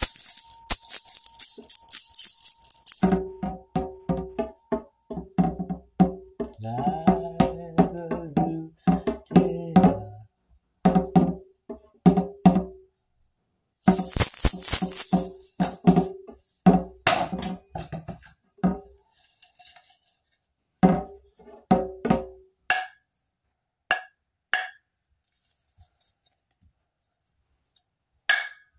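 Hand percussion played freely: a shaken jingling burst at the start and again about halfway, between quick runs of short, pitched knocking strikes. Near the end the strikes thin out to single, higher-pitched taps a second or two apart.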